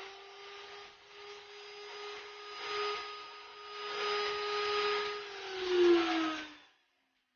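Table saw's circular-saw motor running at a steady whine while the blade cuts wood, the cutting noise swelling and fading. Near the end the pitch sags during the loudest moment, the motor slowing under load, and then the sound stops.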